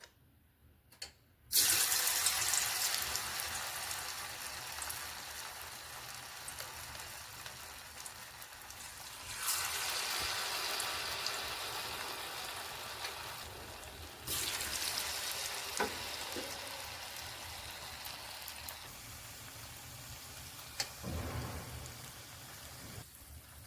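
Potato snacks deep-frying in hot oil: a loud sizzle starts suddenly about a second and a half in and slowly dies down, flaring up again twice, near ten and fourteen seconds.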